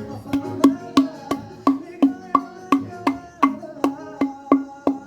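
Background music: a steady, quick beat of short struck notes, about three a second, each ringing briefly.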